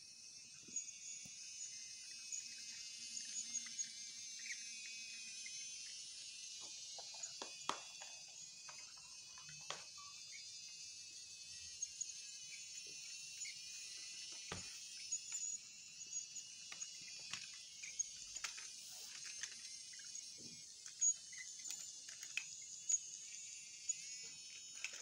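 Small electric motor and gearbox of a battery-powered BRIO wooden toy train whirring steadily at a high pitch as it runs, with scattered irregular clicks as its wheels cross the joints of the wooden track.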